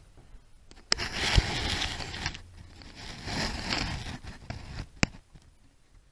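Handling noise from the camera being moved: a sharp click about a second in, two stretches of rubbing and scraping, and another click about five seconds in.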